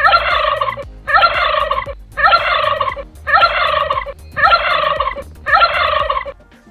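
Turkey gobbling: six gobbles, each about three-quarters of a second long and about a second apart. The calls look nearly identical, like one call repeated.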